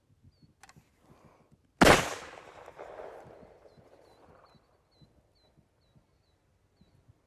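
26.5 mm flare pistol firing once: a sharp report about two seconds in, followed by a long echoing tail that dies away over a couple of seconds. A faint click comes about a second before the shot.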